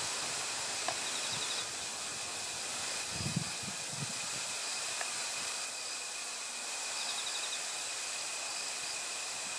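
Steady outdoor ambience: an even hiss with a constant high-pitched insect drone. A short rapid chirp sounds twice, about a second in and again near the end, and a few low thumps come about three seconds in.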